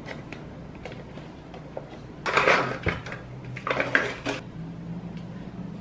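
The plastic lid of a large Kirkland Greek yogurt tub is pried up and pulled off: two spells of crinkly scraping and rustling, about two seconds in and again near four seconds, with a few light clicks before them.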